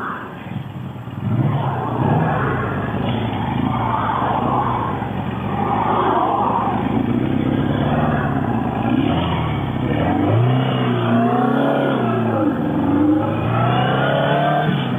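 Motorcycle ride: wind rushing over the microphone, then from about ten seconds in the engine revs up and down a few times as it accelerates and eases off.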